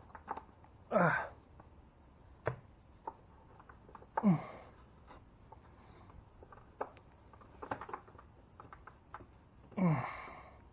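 Gloved hands working a hose connector in an engine bay: scattered light clicks and knocks, and three short sounds that fall sharply in pitch, about a second in, near the middle and near the end.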